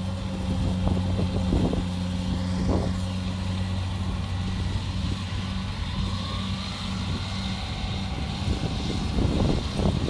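Kubota DC70 Plus combine harvester running steadily while cutting rice, its diesel engine giving a constant low hum, with a few brief knocks and rattles from the machine.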